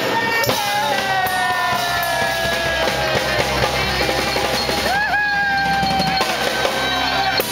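Live band playing upbeat rock and roll on drum kit, electric guitar and saxophone, with long held notes over a busy drum beat.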